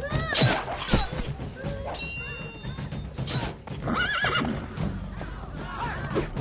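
Horses neighing several times, loudest near the start and again about four seconds in, over a film score.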